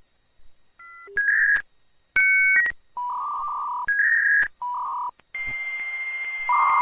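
Telephone touch-tone dialing, about six held beeps, followed by a dial-up modem starting its connection handshake: a steady high tone over hiss, with a louder lower tone joining near the end.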